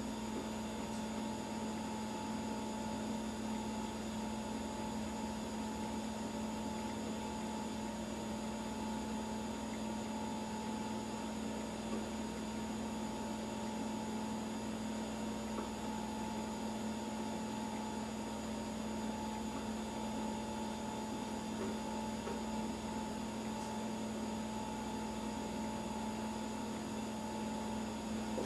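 Steady electrical hum: a constant low drone with a fainter, higher tone above it, unchanging throughout.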